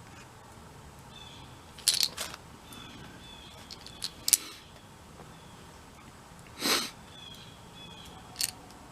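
Small hand tools being handled and set down. There are several sharp clicks and clinks: a cluster about two seconds in, two more around four seconds, a brief scrape or rattle near seven seconds and a last click near the end.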